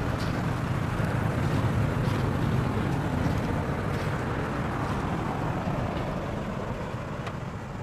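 Passing road traffic: a steady engine and tyre rumble that swells a couple of seconds in and then slowly fades.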